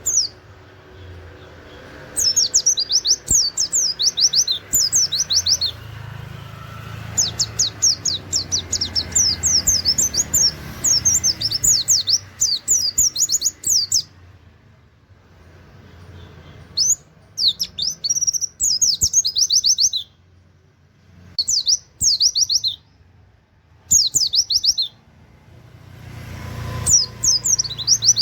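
Pleci (white-eye) singing in rapid volleys of fast, high, down-slurred 'wit wit' notes in a canary-like style, several bursts of one to seven seconds separated by short pauses.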